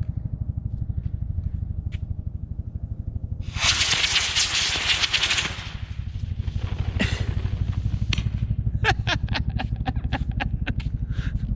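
Model rocket motor igniting and firing with a loud hiss for about two seconds, starting about three and a half seconds in, then cutting out. A steady low engine-like rumble runs underneath, and a series of sharp ticks and clicks follows near the end.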